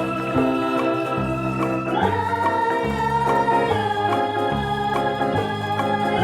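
Background music on an electronic organ-like keyboard: held chords that shift every second or so over a stepping bass line.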